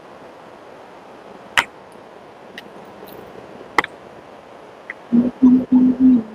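A few sharp clicks of dishes and utensils being handled while food is served onto a plate, then four short low hums of a voice close together near the end.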